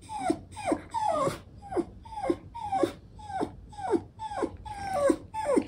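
Chow chow dog whining: a run of short whimpers, about two a second, each falling in pitch.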